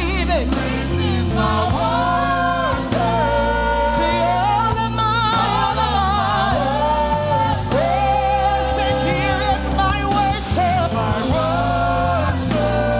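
Gospel worship song: voices holding long, wavering sung notes over a band's steady bass notes.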